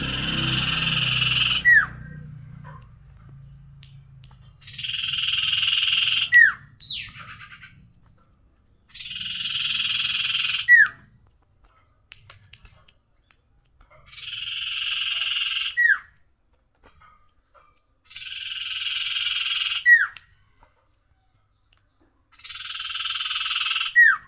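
A sirtu bird giving six long rasping, hiss-like calls, each about two seconds long and repeated roughly every four to five seconds. Each call ends in a short falling whistle.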